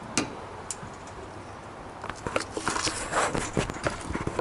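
Jack being worked by hand to lift a dually pickup's rear end: a couple of sharp clicks, then from about two seconds in a busy run of uneven clicks and knocks as the handle is pumped hard.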